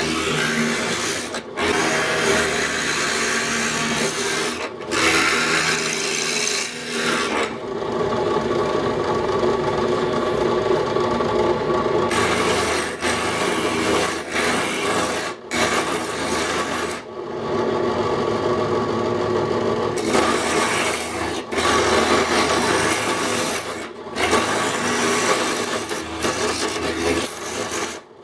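Drill press spinning a Wagner safety planer cutter that shaves the face of a board with a steady rasping over the motor hum. The cutting noise falls away twice for a few seconds while the motor keeps running, and the sound breaks off abruptly several times.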